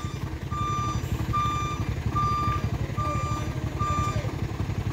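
Truck's reversing alarm beeping, one steady tone roughly every 0.8 seconds, over the low rumble of its engine, as the truck backs up after failing the climb; the beeps stop about four seconds in.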